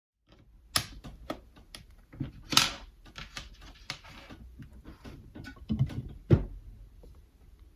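Irregular clicks, taps and knocks of small hard objects being handled, with a few louder knocks, the sharpest a little over six seconds in.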